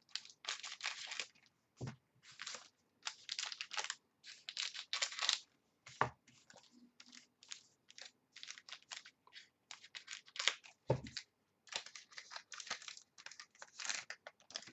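Trading card pack wrappers being torn open and crinkled in irregular short bursts, with a soft thump about 2, 6 and 11 seconds in.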